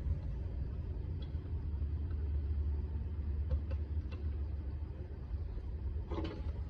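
Steady low rumble of an idling vehicle engine, with a few faint clicks in the middle and a brief voice-like sound near the end.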